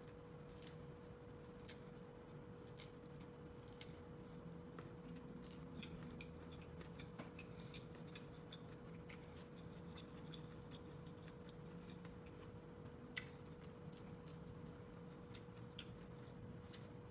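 Faint, irregular clicks of corn kernels being bitten off the cob and chewed, over a steady low hum.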